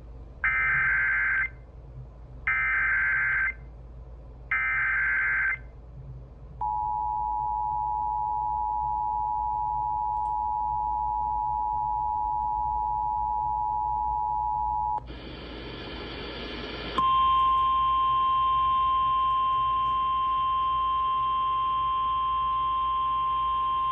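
Emergency Alert System tones opening a new alert: three short bursts of screechy SAME header data, then the steady two-tone attention signal held for about eight seconds. A brief burst of hiss follows, and then a single steady tone, like the weather-radio warning alarm tone, sounds through the end.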